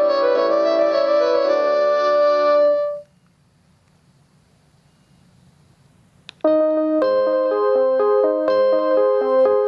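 Panasonic KX-TGD62xE cordless phone ringtones in piano-like tones. One melody stops about three seconds in. After a pause of a few seconds and a short click, the next ringtone starts: a quick repeating pattern of notes.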